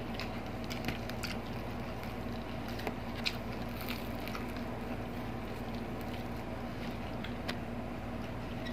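Close-miked eating sounds: soft chewing of fried milkfish, with scattered small wet mouth clicks and smacks. A steady low hum runs underneath.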